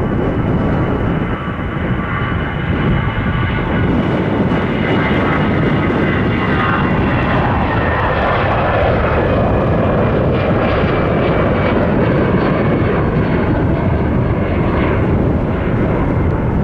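Airbus A319 jet airliner taking off: the loud, steady roar of its twin turbofan engines at takeoff thrust, with high whining tones that slide slowly lower as it accelerates past and climbs away.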